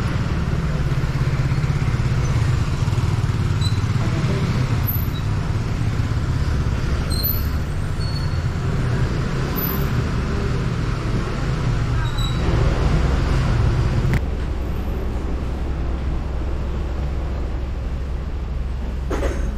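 Urban street noise dominated by a motor vehicle engine running steadily with a low rumble, which changes abruptly about fourteen seconds in.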